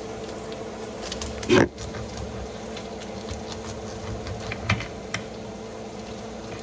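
Kitchen handling sounds: a loud knock about a second and a half in, then a few lighter clicks and taps, over a steady appliance hum.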